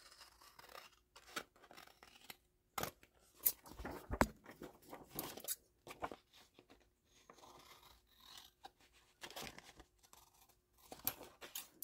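Scissors cutting through patterned scrapbook paper in a run of short, irregular snips, strongest around three to four seconds in.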